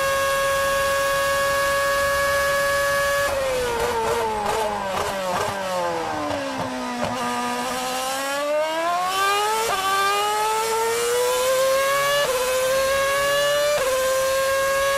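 Cosworth 2.4-litre V8 of a 2013 Marussia Formula One car, heard onboard. It holds a steady high scream at top speed for about three seconds, then drops in jagged steps under braking and downshifts into a slow corner. The pitch then climbs again under full acceleration, broken by three quick upshifts, each a sudden drop in pitch.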